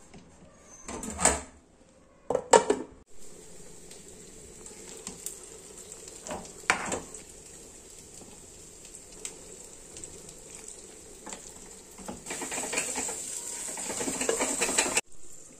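Marinated chicken sizzling in a pan, with a metal spoon clattering against the pan three times in the first seven seconds and a few seconds of stirring and scraping near the end.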